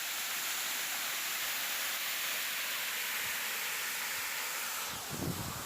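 Steady rush of a waterfall, with a few low thumps near the end.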